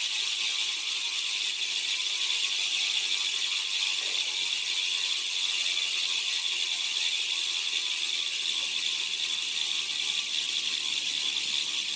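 Rear freehub of a Pacific Bike Primum Pro road bike buzzing as the rear wheel spins freely, the pawls ratcheting in an even, steady high-pitched buzz.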